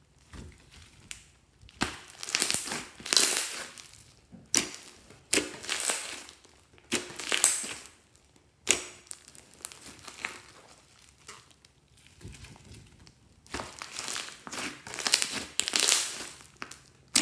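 Hands squeezing and stretching fluffy slime studded with small foam beads: irregular bursts of wet crackling and popping as the slime is pressed and pulled, with one sharp pop about two-thirds of the way through.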